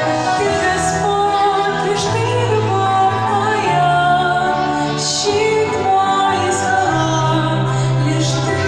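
Background music: a song with a female singing voice over a steady bass line.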